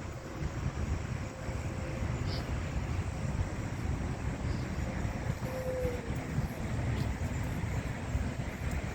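Steady low rumble of a truck running.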